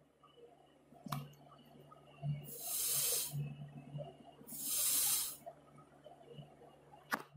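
Two short hisses, each about a second long and about two seconds apart, with a sharp click about a second in and another near the end, over a faint steady hum.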